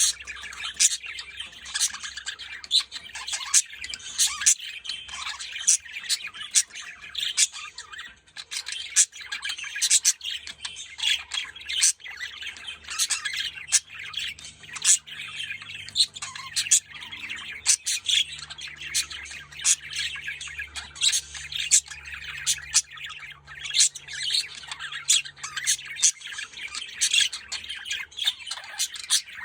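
Budgerigars chattering and warbling without a break, with frequent short, sharp chirps and squawks.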